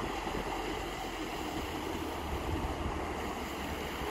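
Fishing boat's engine running steadily as the boat passes close at speed, with the rush of its bow wave and wake.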